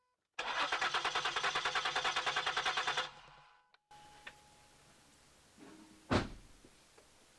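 Ford Flex's V6 engine cranking on the starter for about two and a half seconds with a fast, even rhythm and never catching: a no-start with no fuel pressure at the fuel rail, which the mechanic puts down to the fuel pump relay module. A single sharp thump a few seconds later.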